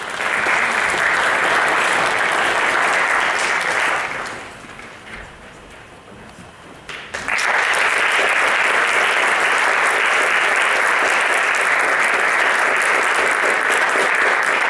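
Audience applauding in two rounds. The first round dies away about four seconds in. After a quieter gap of about three seconds, a second round starts abruptly and carries on.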